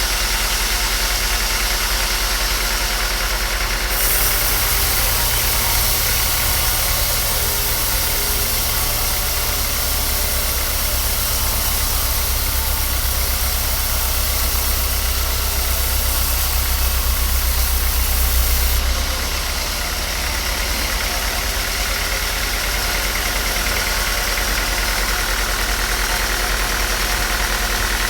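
A woodworking machine runs steadily with a low hum. From about four seconds in until about nineteen seconds, a hissing layer is added and the machine gets slightly louder, then it settles back to its plain running sound.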